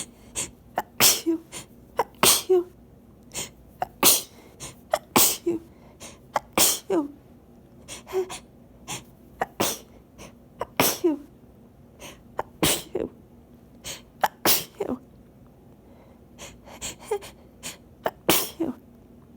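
A person's sneezing fit: a rapid run of sharp sneezes, about a dozen, roughly one every second or so. Each has a short catch of breath around it, and there is a brief pause a little over two-thirds of the way through.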